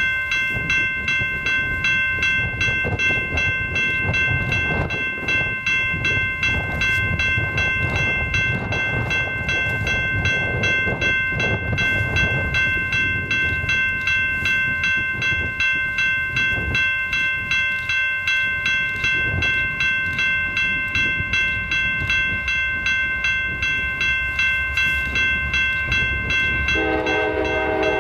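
Railroad grade-crossing bell ringing with rapid, even strikes while the signals are active for an approaching train. Near the end, a locomotive air horn starts sounding as the train nears the crossing.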